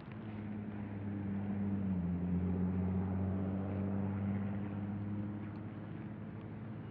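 A road vehicle's engine hum, recorded through the Snap G action camera's built-in microphone, swells as it passes, drops slightly in pitch about two seconds in, then slowly fades.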